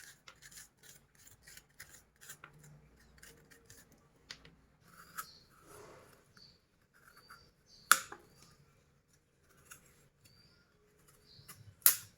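A knife cutting and trimming babe pumpkins at a cutting board: quiet scraping and clicking, with two sharp knocks, one about eight seconds in and one near the end.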